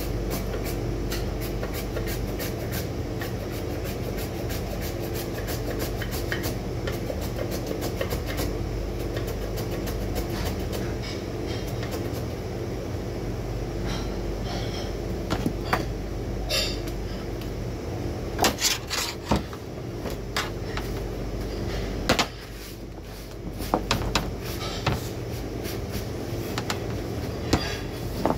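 Steady low machine hum with scattered clicks, knocks and clatter of vegetable prep: a metal vegetable cutter and a peeler handled while carrots are cut and peeled. The knocks get busier in the second half, with a few sharper ones.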